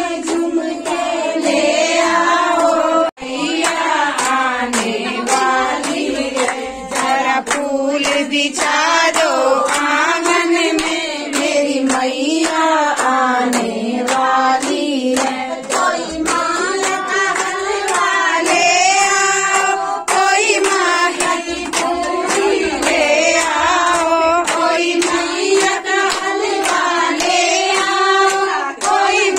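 A group of voices singing a devotional song together, with steady rhythmic hand clapping.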